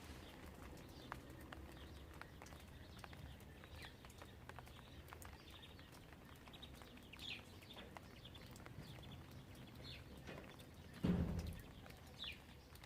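Faint outdoor ambience: scattered light ticks and a few short, high bird chirps, with one louder low thump about eleven seconds in.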